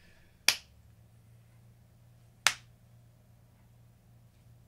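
Sharp finger snaps, evenly spaced about two seconds apart: two clear ones and a third right at the end.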